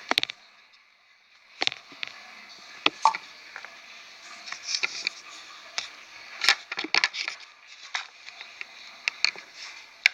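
Irregular clicks, taps and crackles of plastic packaging and Play-Doh tubs being handled, with a few quick runs of clicks.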